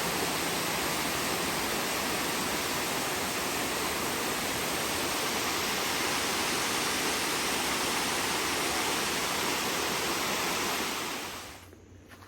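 Waterfall rushing: a steady, even rush of falling water that fades out near the end.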